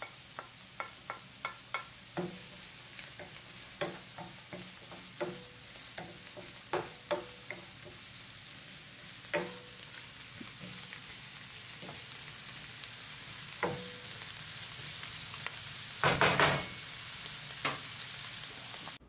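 Onions, green onions, herbs and garlic sizzling in hot olive oil in a frying pan, the sizzle growing louder, while a wooden spoon stirs with frequent sharp taps and scrapes against the pan. A louder burst of stirring noise comes about sixteen seconds in.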